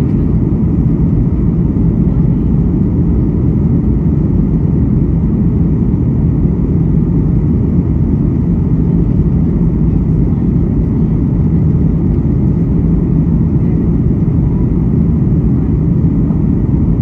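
Cabin noise of a Boeing 737 MAX 8 in its initial climb after takeoff: the CFM LEAP-1B turbofan engines at climb power and the rush of airflow make a loud, steady low roar with a faint steady hum.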